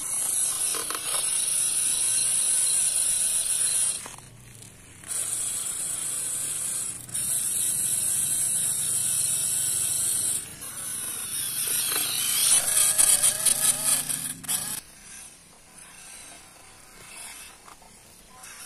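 RC crawler truck's small electric motor and gearbox whining in several runs, stopping and starting as it is driven over soil. About twelve seconds in a fast ticking rattle comes in for a few seconds, then it goes much quieter.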